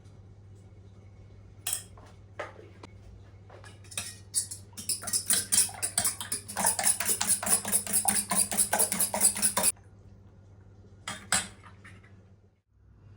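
A metal utensil beating fast and evenly against a bowl for about five seconds, then stopping suddenly, with a few single clinks of kitchenware before and after.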